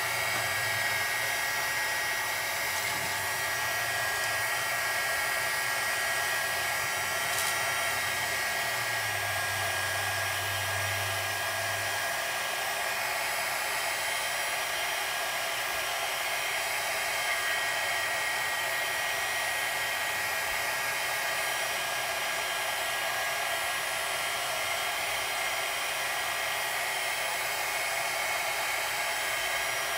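Electric craft heat gun running steadily, blowing hot air onto a thermal-paper store receipt: an even rush of air with a steady high whine from its fan motor.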